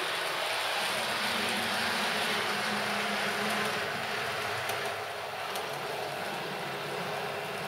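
OO gauge model two-car diesel multiple unit running on DC: its motor whirring and its wheels running on the track, with a low hum for a few seconds in the first half and a few faint clicks later.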